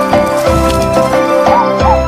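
Background music with held melodic notes over a recurring low bass note.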